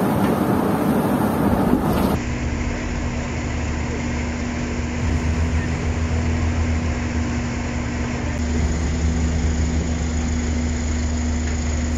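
Wind and water rushing over the microphone aboard a moving boat, then, after a cut about two seconds in, a boat engine running steadily with a low, even hum.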